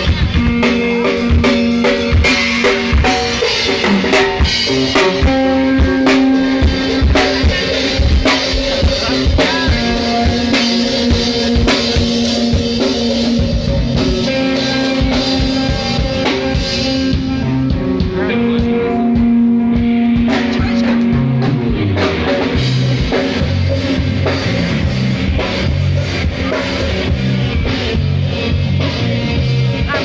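Rock music with a steady drum-kit beat and guitar, the bass line shifting lower about two-thirds of the way through.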